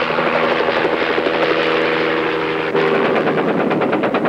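Bell Sioux Scout experimental helicopter running in flight, a steady drone of several tones. About two-thirds of the way in the drone changes and a rapid train of sharp reports begins: machine-gun fire from its chin turret.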